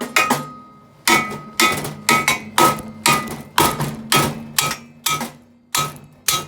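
A plastic mallet hammering about a dozen times on a Razor trike's metal frame bar, roughly two blows a second, to break the bar off. Each blow is a sharp knock, and the metal rings on between the blows.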